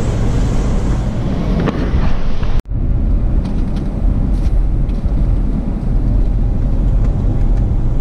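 Road noise heard from inside a moving car's cabin: a steady low rumble of engine and tyres, with a tyre hiss from wet pavement. A sudden edit cut about two and a half seconds in leaves a drier, quieter hiss over the same low rumble.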